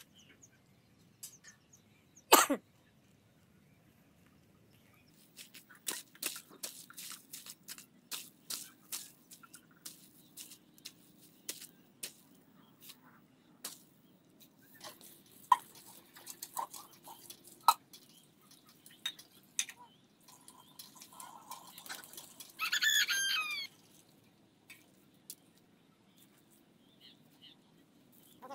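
Scattered clicks and knocks of a shovel working a heap of wet mud. About 23 seconds in, a bird calls once for about a second, the loudest sound.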